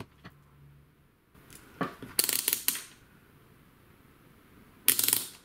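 Rotary selector dial of a handheld digital multimeter being turned, its detents clicking in two quick runs, about two seconds in and again near the end: the meter switched off and back on, to reset it after a false reading of 35 ohms with the leads shorted.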